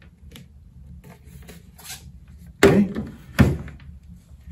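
A plastic circuit trainer box set down on a wooden desk: two solid thumps about three-quarters of a second apart, between light handling rubs.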